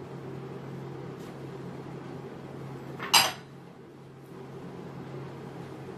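A glass bowl clinks sharply once, about three seconds in, with a short ring, as it is set down on another glass bowl. Faint knocks of a spatula in a glass mixing bowl and a steady low hum sit beneath it.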